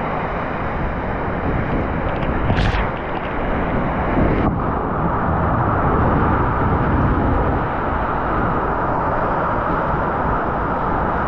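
Rushing water and an inflatable tube skimming down a funnel water slide, heard as a steady rumbling noise with wind buffeting the action camera's microphone. About four seconds in the hiss drops away and the sound turns duller.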